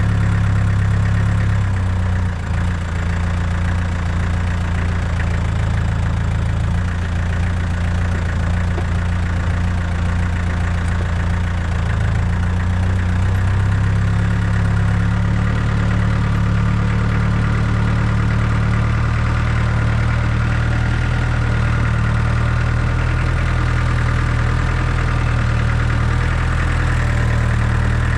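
Tractor engine running steadily, an even low drone with slight shifts in pitch.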